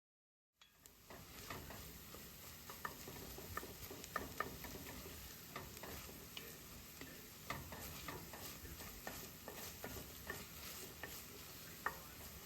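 Shallots, garlic, celery and carrots sweating in butter in a soup pot, a faint steady sizzle, while a spoon stirs them with scattered clicks against the pot. The sound begins about half a second in.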